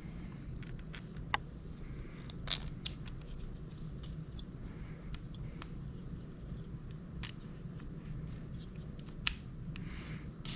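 Scattered light clicks and taps of small trimmer parts and bolts being handled and fitted by hand during reassembly, over a steady low background hum.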